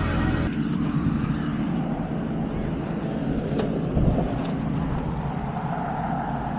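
Zero-turn riding lawn mower engine running steadily, with a noisy rush over it.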